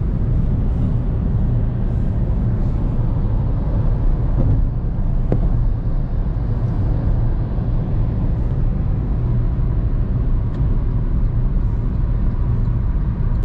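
Steady road and engine noise heard inside a car cabin at highway cruising speed: a low, even rumble that does not change.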